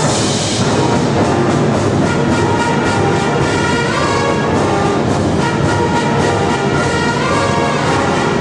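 Symphonic wind band playing a loud, full passage live, with a bright crash right at the start and sustained brass and woodwind lines after.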